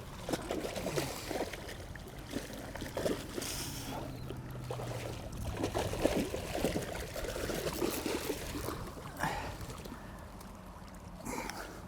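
Water splashing and trickling in short, irregular bursts at the river's edge, with a brief low hum partway through.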